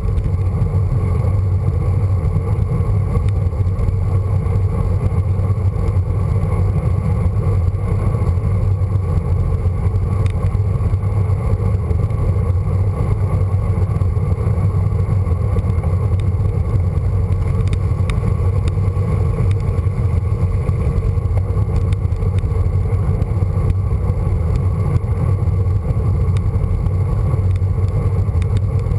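Wind rushing over a handlebar-mounted camera's microphone as a road bike descends at speed: a loud, steady, low rumble with no let-up.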